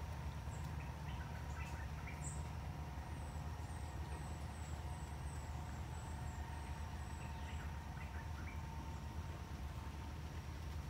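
Forest ambience: a bird gives a run of about a dozen short, high chirping notes a few seconds in, over a steady low rumble and faint scattered calls.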